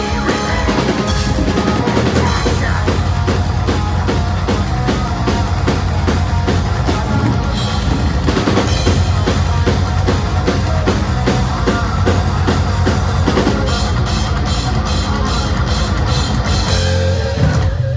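Heavy metal band playing live: electric guitars and bass over busy, driving drums with a fast bass drum, then a run of heavy accented hits in the last few seconds as the song ends, cutting off at the very end.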